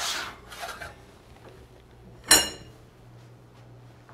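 Metal roasting pan sliding out over the oven rack with a scrape, then a single sharp metallic clank with a short ring a little over two seconds in as the pan is handled and set down.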